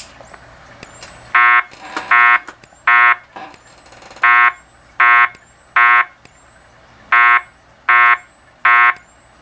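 Wheelock speaker strobe sounding the temporal-3 evacuation tone: three groups of three short pitched beeps, each group separated by a longer pause, as the lead-in to the recorded Wheelock voice message. Underneath, a faint high whine with a light tick about once a second comes from the strobe charging and flashing.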